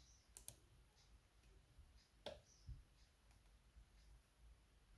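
Faint, sparse clicks of a lock pick and tension wrench working the pin stacks of a maXus 3-star euro cylinder lock during single-pin picking: about five small ticks, a couple near the start and a few more past the middle.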